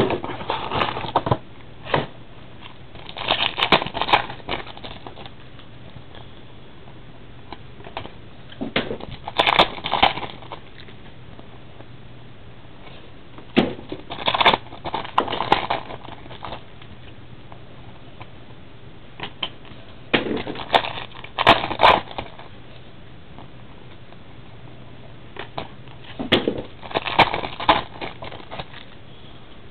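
Bursts of crinkling and rustling from trading-card packaging being handled, about five clusters a few seconds apart.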